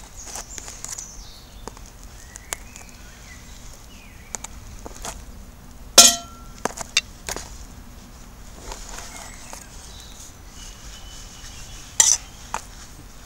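A knife and metal cookware clinking and knocking as food is cut up for the pot: scattered light clicks, with two sharp metallic strikes that ring briefly, one about six seconds in and one near the end.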